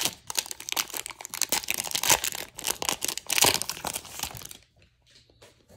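A baseball card pack wrapper crinkling and tearing as it is opened by hand, a dense crackle that stops about four and a half seconds in, followed by faint handling of the cards.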